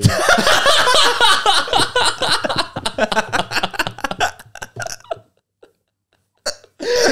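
Two men laughing hard together, dying away after about five seconds.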